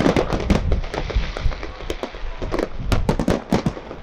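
Fireworks display: a rapid, irregular run of bangs from shells bursting, many overlapping, with a crackling hiss between the bangs about a second in.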